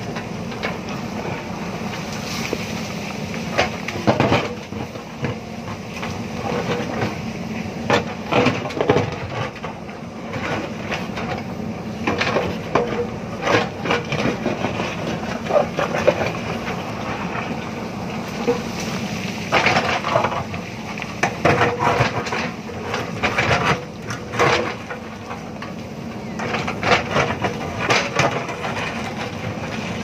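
JCB backhoe loader's diesel engine running steadily under load while its backhoe bucket digs into a stony hillside, with repeated sharp cracks and clatters of rock breaking and tumbling.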